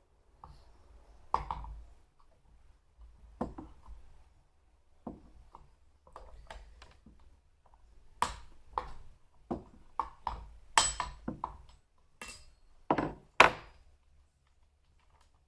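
Chainsaw bar nuts being undone with the saw's combination key: about a dozen irregular sharp metal clicks and knocks as the key is fitted and turned on the nuts, the loudest a few seconds before the end.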